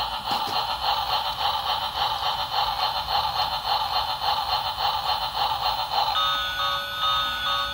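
Electronic sound chip of a battery-powered toy train playing: a fast, buzzy pulsing chug that about six seconds in switches to a beeping electronic tune.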